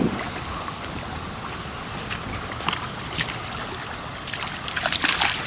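Riverbank ambience: a steady hiss of wind and water with scattered light clicks. It grows louder and rustling near the end.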